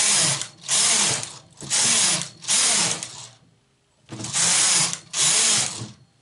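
Home knitting machine carriage swept back and forth along the metal needle bed, a clattering rattle in six separate passes of about half a second each, with a longer pause past the middle. These are the strokes that knit a row and then rows of waste yarn to take the piece off the machine.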